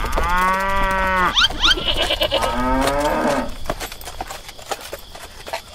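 Cow mooing twice: a long moo about a second long, then a second moo that falls in pitch.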